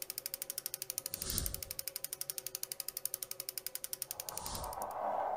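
Intro sound effect of clockwork gears: rapid, even ratchet-like clicking, about ten clicks a second, with two whooshes, about a second in and again after four seconds. The clicking stops near the end as a swell of noise rises.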